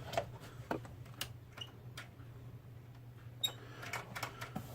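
Scattered clicks and light knocks of hands handling and reseating parts inside a desktop computer, over a steady low hum.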